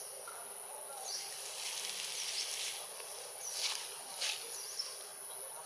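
Outdoor nature sounds: a steady, high insect drone with short bird chirps about once a second. Two brief scratchy noises stand out about three and a half and four seconds in.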